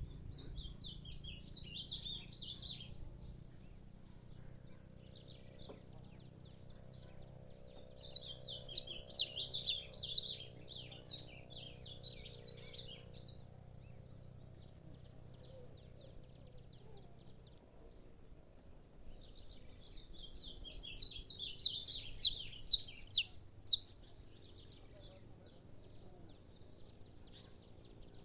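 Saffron finch (canário-da-terra) singing in phrases of rapid, high chirping notes. A faint phrase comes at the start, then a loud burst about eight seconds in lasting several seconds, another about twenty seconds in, and a new one beginning at the very end.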